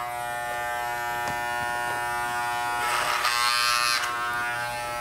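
Corded electric hair clippers running with a steady buzz as they cut a mannequin head's hair, with a brief rougher patch about three seconds in.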